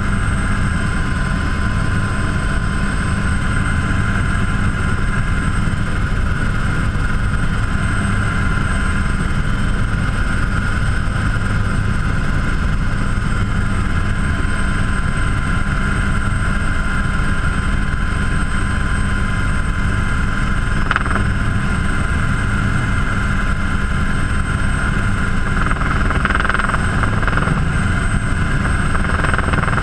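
Helicycle turbine-powered single-seat helicopter in level cruise flight, heard from inside its cockpit: a steady loud low rumble of rotor and airframe with a constant high-pitched turbine whine over it.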